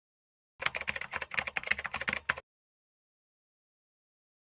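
A fast run of light, sharp clicks, about ten a second, lasting nearly two seconds, like typing on a keyboard.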